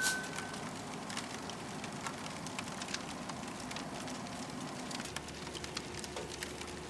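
Firewood crackling and popping as it burns in a camping wood stove: irregular small snaps over a steady hiss. A short single-pitch chime sounds right at the start.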